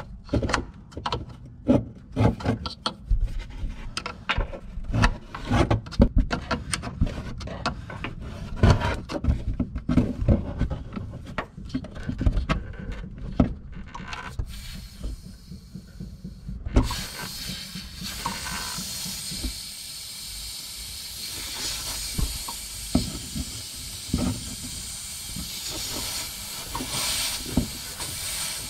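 Small metal clicks and knocks of a 10 mm wrench working the air-line fittings of a BMW X5 F15's rear air suspension. A bit over halfway through, a steady hiss begins as air escapes through the loosened line and the air suspension deflates.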